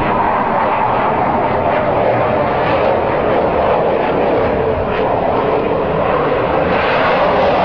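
Fighter jet flying low past, its jet engine a loud steady rushing noise that grows slightly louder near the end.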